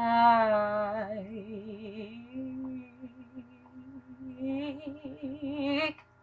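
A woman singing unaccompanied, drawing out the last word of her line in long held notes with a wide vibrato. The voice drops to a softer held note in the middle, then climbs in a final rising phrase that stops abruptly near the end.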